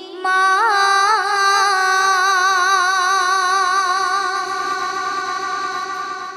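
A woman singing a Bengali gojol (Islamic devotional song) unaccompanied, holding one long note that wavers at first, then steadies and slowly fades.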